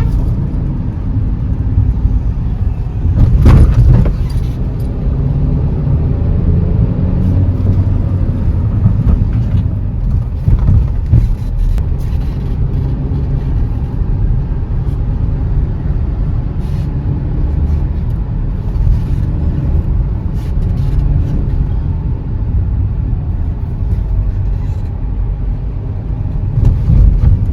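Hyundai Aura's four-cylinder engine and road noise heard from inside the car as it is driven at speed on petrol, pulling without misfiring now that its fuel injectors have been replaced. A loud thump comes about three and a half seconds in.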